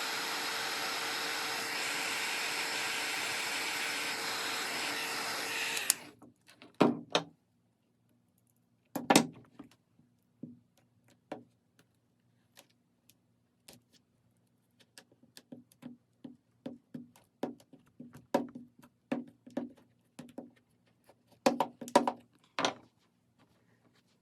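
Heat gun blowing steadily with a faint whine, switched off about six seconds in. After that come scattered light clicks and taps from handling and working the plastic flare, over a faint steady hum.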